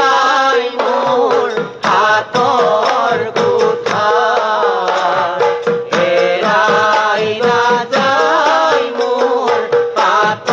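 Dihanam, an Assamese devotional song, sung by voices over a steady held note with drum accompaniment.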